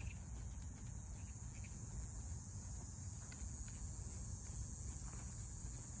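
Cicadas buzzing in a steady, high-pitched, unbroken drone.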